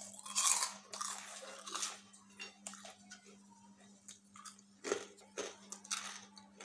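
Crisp deep-fried papad (fryums) being bitten and chewed: a run of dry crunches, loudest in the first two seconds and again from about five seconds in.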